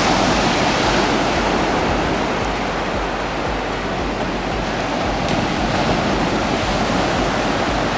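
Ocean surf breaking on the beach, a steady wash, with wind buffeting the microphone in low, uneven rumbles.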